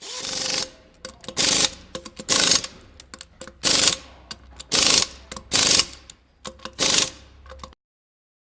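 A power tool run in seven short bursts of about half a second each, with small clicks and rattles between the bursts; it stops abruptly near the end.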